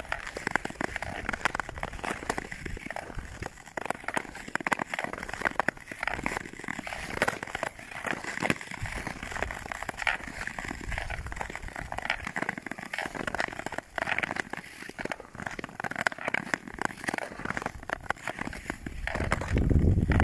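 Thin harbour ice crackling and breaking up: a dense, continuous run of sharp clicks and crunches, with a low rumble building near the end.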